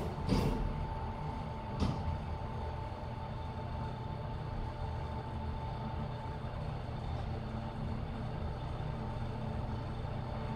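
Inside a 2002 LG-Otis Si1 traction elevator car: a few clunks in the first two seconds as the doors finish closing and the car sets off, then a steady low rumble with a thin, steady whine as the car travels.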